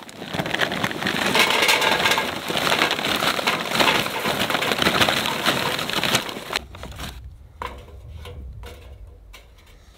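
Lumps of charcoal clattering and crunching as they are tipped into a metal container, dense for about six seconds, then a few scattered clicks as they settle.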